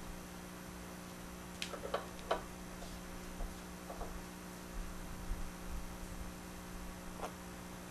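Steady electrical mains hum, with a few faint, soft ticks from hands handling fabric, needle and pins while sewing.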